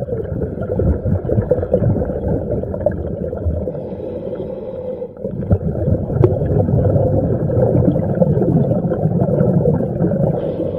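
Loud, muffled rushing and gurgling of water, heard through an underwater camera.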